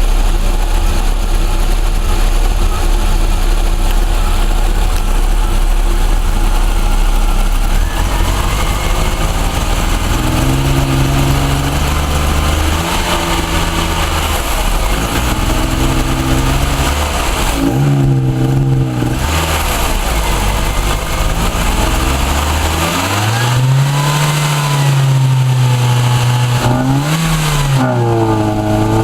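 Ford Orion's Zetec four-cylinder engine running with a misfire. It runs steadily at first, then is revved up and let fall back repeatedly, several blips in quick succession near the end.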